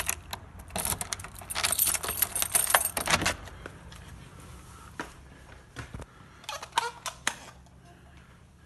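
A bunch of keys on a ring jangling and clinking, densest over the first three seconds, then a few separate clinks about five and seven seconds in.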